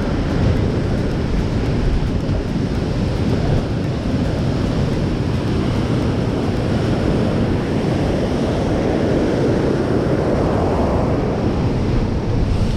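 Sea surf washing against a rocky shore, with wind on the microphone: a steady loud rush that swells for a few seconds past the middle.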